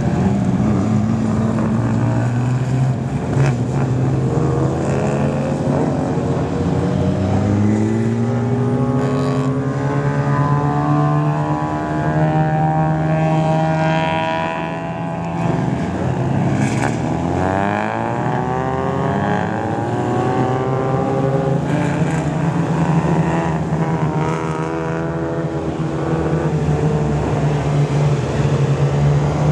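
Several race car engines running at idle, steady throughout, with revs rising and falling through the middle as cars move off and pass.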